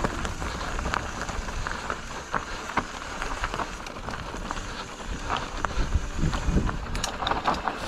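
Mountain bike riding downhill over loose, stony singletrack: tyres crunching over the ground, the bike rattling, scattered sharp clicks and knocks, and a steady low rumble.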